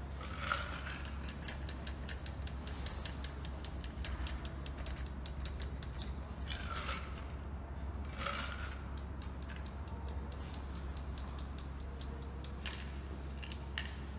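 Shaken cocktail being strained from a metal shaker through a small fine mesh strainer into a glass: a fast, even run of light metallic clicks for the first few seconds as the strainer is jiggled, then a few short swishes from the shaker and a couple of single clicks, over a steady low hum.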